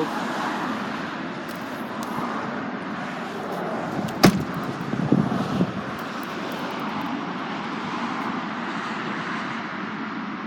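Steady background traffic noise, with one sharp knock a little over four seconds in and a few softer knocks just after it.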